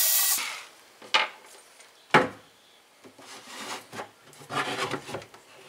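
A cordless screwdriver whirs as it backs out a screw, stopping about half a second in. Two sharp knocks follow, then the plastic housing of an electric shower rubs and scrapes against a wooden bench as it is handled.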